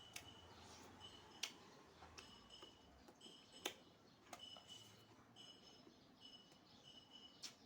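Quiet close-up mukbang eating sounds: scattered wet clicks and smacks of a mouth chewing pork and beans, the sharpest about one and a half and three and a half seconds in. A faint high-pitched steady chirping tone comes and goes behind it.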